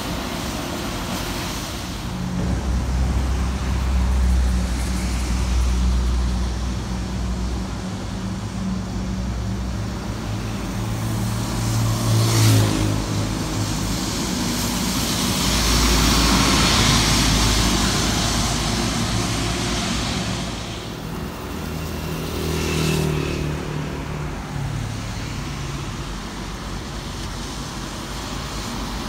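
Highway traffic on a wet road: coaches and trucks going by with a low engine hum and tyres hissing on the wet asphalt. The hiss swells to its loudest as a vehicle passes about halfway through.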